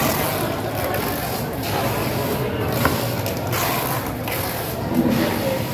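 A large knife slicing fresh tuna into chunks on a wooden chopping block, over steady background noise, with a sharp tap about three seconds in.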